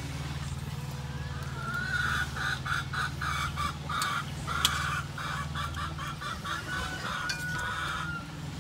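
A chicken calling in a run of short, evenly repeated clucks starting about two seconds in, ending with a longer drawn-out note near the end, over a steady low hum.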